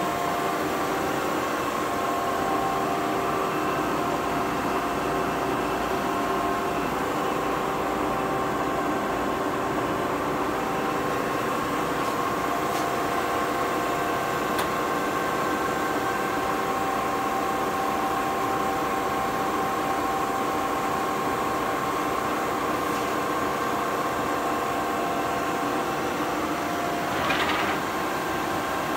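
A 1970 Webster & Bennett 48-inch vertical turret lathe running under power, giving a steady mechanical hum with a constant whine from its drive. There is a short, louder noise near the end.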